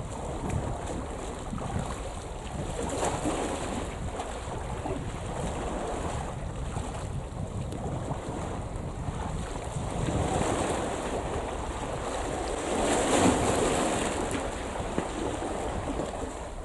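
Small waves washing and lapping at the shoreline, swelling louder a few times, with wind rumbling on the microphone.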